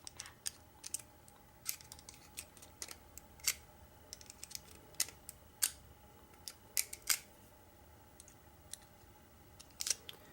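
Irregular small metal clicks and taps of a steel hook pick working inside a Medeco lock cylinder's pin chamber, digging at a jammed spring that is crushed.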